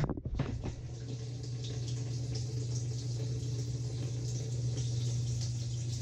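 A dishwasher tub filling with water at the start of a cycle: a steady rush of incoming water over a low, even hum from the machine.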